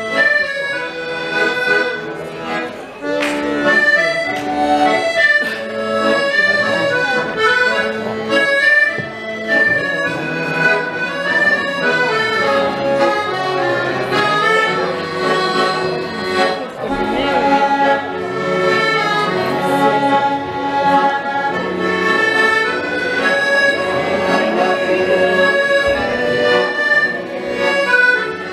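Chromatic button accordion played solo: a quick melody of short notes over held chords, continuous with no break.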